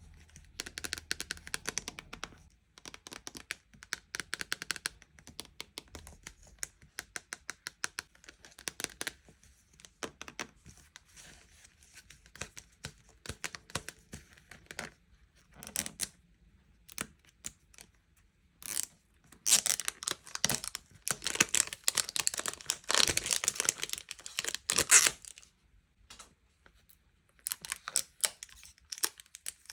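Sweet and toy packaging being handled and unwrapped: many quick taps and clicks on plastic, then a few seconds of loud crinkling and tearing of wrappers after about twenty seconds.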